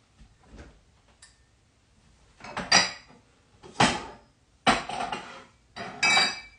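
Kitchen dishes and metal utensils clinking and clattering, about four sharp knocks with a short ring after some of them, starting a couple of seconds in.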